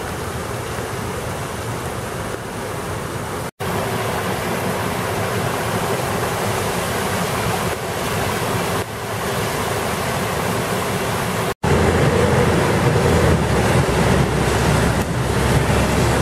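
Rushing floodwater: muddy runoff pouring across a lawn, then storm water gushing out of a concrete culvert pipe into its spillway. After an abrupt change about 11 seconds in, a louder low rumble of a moving vehicle takes over.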